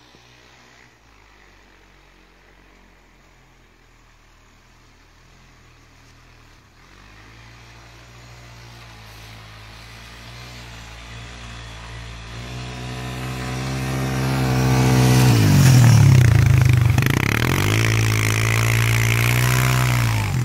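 Single-cylinder engine of a Honda 250 ATV running as the quad drives through snow toward the listener, faint at first and growing steadily louder. Near its loudest, about three-quarters of the way in, the engine pitch dips and comes back up.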